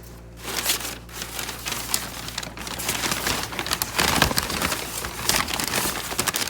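Packing material in a cardboard box crinkling and rustling as it is handled, a dense run of small crackles starting about half a second in.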